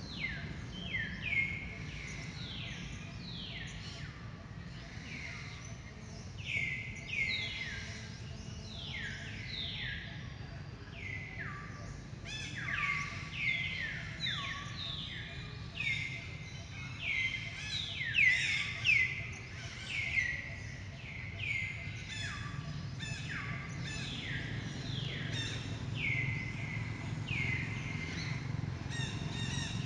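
Birds calling over and over, each call a quick whistle sliding down in pitch, several overlapping, over a steady low hum.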